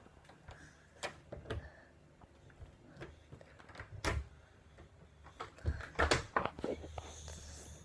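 Scattered knocks and bumps of a phone being carried and handled on the move, with a cluster of louder knocks about six seconds in.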